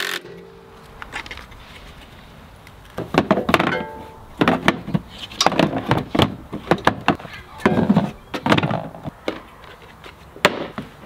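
Hard plastic tool case and plastic container being handled and set onto a metal ATV frame: irregular knocks, thuds and clatter, starting about three seconds in.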